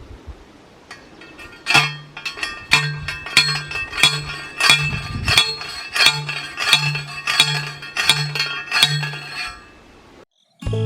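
Background music with a steady beat: bright chiming, plucked-sounding hits about every two-thirds of a second over a pulsing bass note, starting about two seconds in and stopping shortly before the end.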